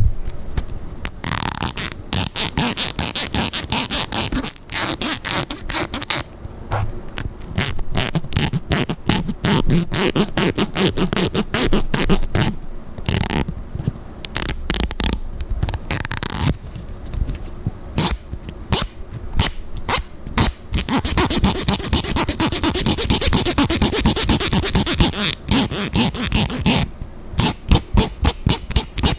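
A comb scraped and rubbed, making dense runs of quick clicks over a scratchy rustle, with brief pauses between runs.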